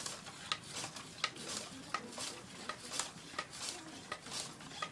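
Water rocket being pumped up while it leaks: short hisses of air about twice a second, with air and water spurting out round a poorly sealed bottle.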